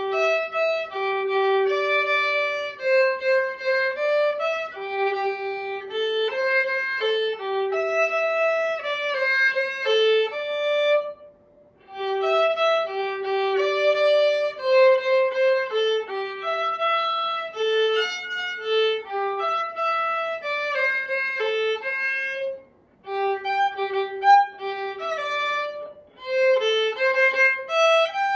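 Solo violin playing a slow melody of single notes, in phrases with two short pauses.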